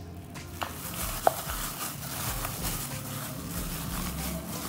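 Gloved hand squishing and turning raw chicken pieces in a spice marinade in a bowl, with wet squelching and plastic-glove crinkling, working the masala into the meat. A sharp click stands out a little over a second in.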